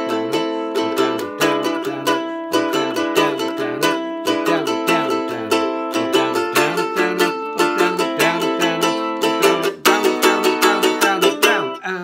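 Godin electro-acoustic guitar strummed in a brisk Latin rhythm, chords repeated stroke after stroke and damped by the fretting fingers. The pattern breaks off briefly near the end.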